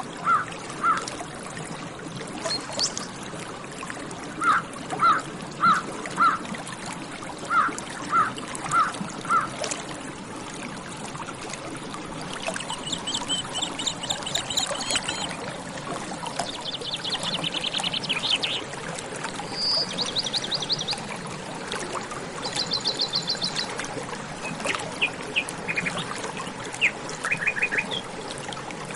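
Water trickling and pouring steadily, with birds calling over it: in the first ten seconds, short loud calls in quick groups of three or four, then from about twelve seconds in, high rapid songbird trills, several in turn.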